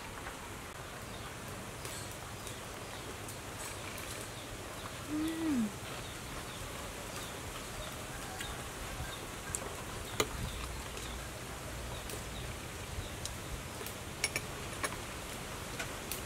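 A metal spoon clicking a few times against a ceramic bowl during eating, over a steady outdoor background of insects. A short falling tone sounds about five seconds in.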